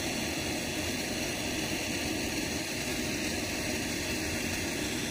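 Pet grooming dryer blowing air steadily while a Bichon Frise's coat is dried after a bath.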